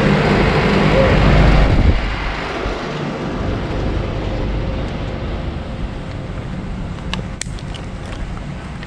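Outdoor central air-conditioner condensing units running: a steady fan rush with a low compressor hum, loud for about the first two seconds and then softer, with a few faint clicks near the end.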